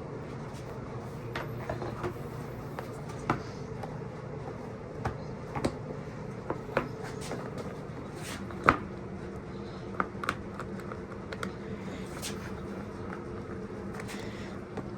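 Irregular light clicks and knocks of hand work on a dirt bike's seat mounting, as the seat is fitted and bolted down, the sharpest knock a little under nine seconds in. A steady low hum runs underneath.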